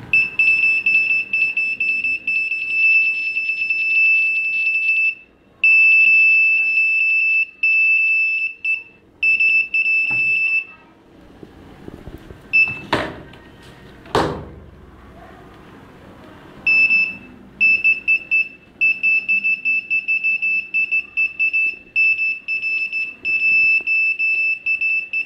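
Piezo buzzer of a breadboard cell phone detector circuit sounding one steady high-pitched beep tone, set off by the nearby mobile phone's radio transmission. The tone comes in long stretches that break up into rapid chopped beeps, with a pause of several seconds in the middle. Two loud knocks fall in that pause.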